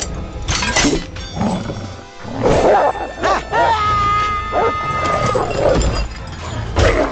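Animated-film action soundtrack: music under a series of crashes and impacts, with a held high note through the middle.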